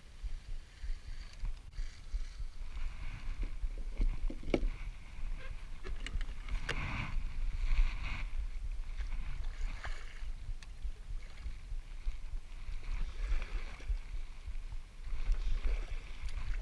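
Kayak paddle strokes in the water, a splash and drip every two to three seconds, with a few sharp knocks of the paddle, over a steady low rumble.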